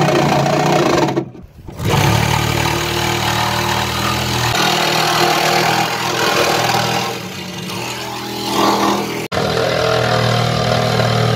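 Cordless Milwaukee Sawzall reciprocating saw running and cutting an opening through the top of an aluminum boat's hollow deck box. It stops briefly about a second in, eases off for a moment near the middle, and halts for an instant after about nine seconds before cutting on.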